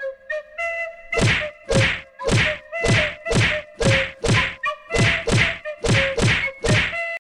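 Wooden crutch and walking-frame knocking on the ground in a steady rhythm, about two knocks a second, as a cartoon sound effect for hobbling. The knocks stop abruptly at the end.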